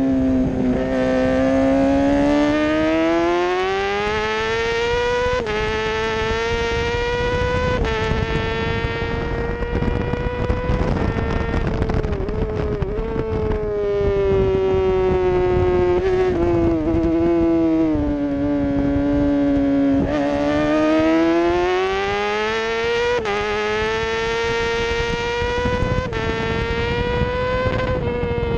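Onboard sound of a middleweight racing motorcycle's engine at high revs on track, its pitch climbing under acceleration with abrupt steps at gear changes and sinking as the rider backs off for corners, twice over, over a rush of wind noise.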